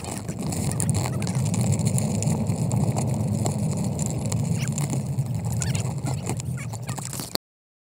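Rumble of pram wheels rolling over a sandy gravel path, carried up through the frame into the camera mounted on the pram, with a few light knocks. It cuts off suddenly near the end.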